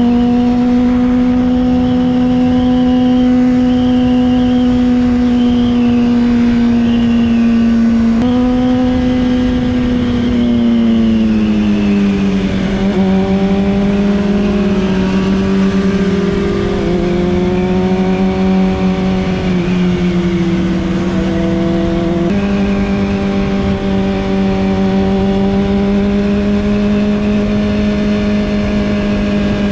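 Honda CBR600RR inline-four engine running at steady cruising revs, heard from the rider's seat with wind noise underneath. The engine note jumps slightly about eight seconds in, then falls and wavers as the bike eases off, and steps back up near twenty-two seconds.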